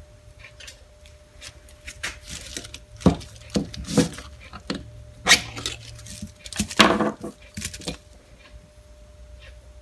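Irregular sharp clicks and knocks of small metal parts and tools being handled as a vintage Craftsman ratchet is taken apart, louder around the middle.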